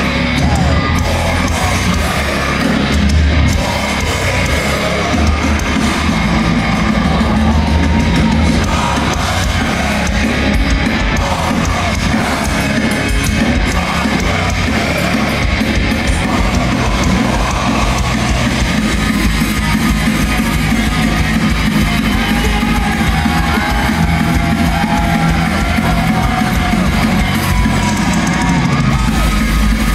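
Melodic death metal band playing live at full volume: distorted electric guitars, a pounding drum kit and growled vocals.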